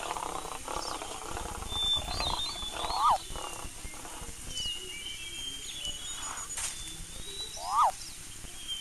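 Wild animal sound effects over a bed of high bird chirps: a rough, growl-like sound in the first two seconds, and a short sharp cry that rises and falls in pitch, heard twice, about three seconds in and near the end.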